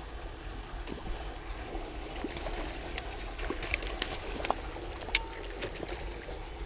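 Steady low outdoor rumble, with scattered light clicks and rustles as a baitcasting rod and reel are handled, mostly from about two and a half to five and a half seconds in.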